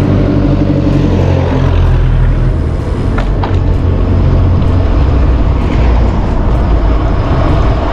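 Heavy wind buffeting on a camera microphone as a road bike rides along at speed: a loud, steady low rumble with a few faint clicks about three seconds in.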